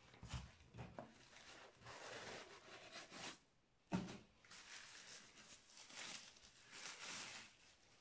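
Packaging being handled: a few soft knocks on the cardboard box, then rustling and crinkling of a thin wrapping sheet as a diffuser is pulled out and unwrapped. A sharp knock about four seconds in is the loudest sound.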